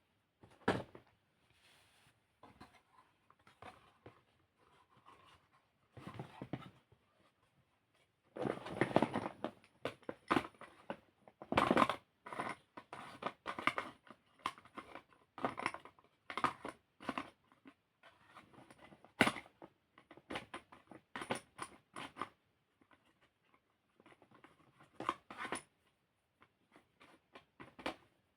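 Chalk being crumbled close to the microphone: irregular dry crunches and crackles, with a denser burst of crunching about eight seconds in and scattered sharp cracks after.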